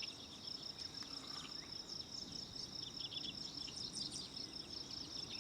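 Crickets trilling in a steady, high-pitched, rapidly pulsing chorus, with scattered faint short chirps over it.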